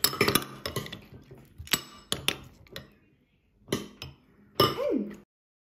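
A metal spoon clinking against a glass bowl as it scoops watermelon chunks in milk: a quick run of clinks, a pause, then a few more.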